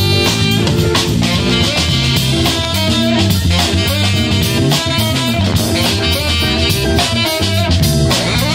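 Live jazz band playing together: saxophone, keyboard, guitar and electric bass over a drum kit, with a steady beat.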